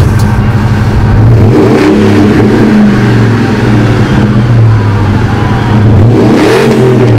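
Supercharged V8 of a Harley-Davidson edition Ford F-150 pickup running at idle through its exhaust, with the revs raised briefly about two seconds in and again near the end.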